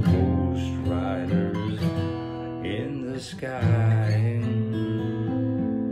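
Acoustic guitar strummed and fretted through the closing bars of a country-western song, settling about halfway through onto a held chord that is struck again a few times.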